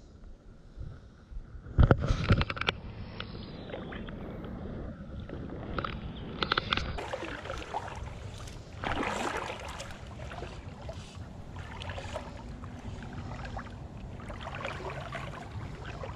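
Water and handling sounds from a kayak on a river: a cluster of knocks and splashing about two seconds in, likely the sunfish being let go, then water moving against the hull with rustles of fly line being stripped and cast.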